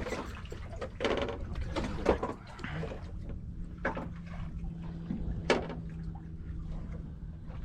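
Low rumble of a small boat on the water, with a few sharp clicks and knocks from fishing gear being handled and a low steady hum that starts a few seconds in.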